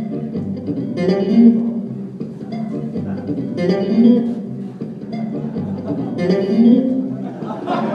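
Electric bass guitar played solo, a plucked phrase that repeats about every two and a half seconds.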